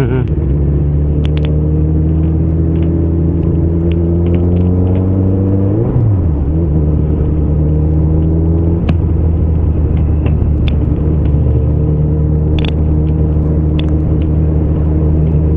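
Motorcycle engine under way, heard over wind rumble. Its note climbs slowly for about six seconds, then jumps and drops as the gear changes, and runs steadily afterwards. It eases off around nine seconds in and picks up again near the end.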